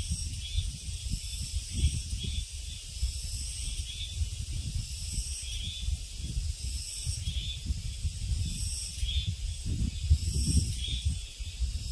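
Summer insects droning in a steady high-pitched chorus that swells and fades every second or two. Wind rumbles and gusts on the microphone underneath.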